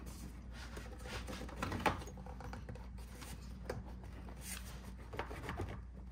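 Plastic engine intake tube being worked onto its fitting by hand: light rubbing with a few small clicks and knocks, the sharpest about two seconds in, over a faint steady low hum.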